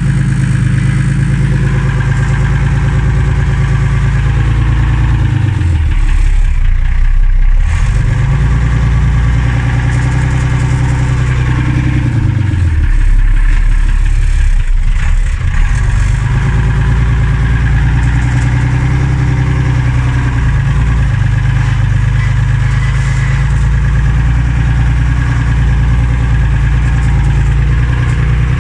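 Unimog 406's six-cylinder diesel engine running as the truck drives off-road, heard from inside the cab. The engine note dips and climbs back twice, about six and thirteen seconds in.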